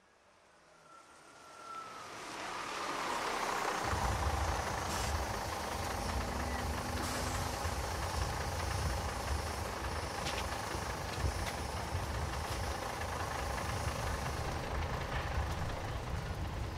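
Idling buses: a steady hiss over a low engine rumble, fading in over the first few seconds and growing heavier about four seconds in.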